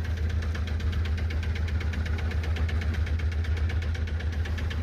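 Boat engine running steadily: a low hum with a rapid, even beat.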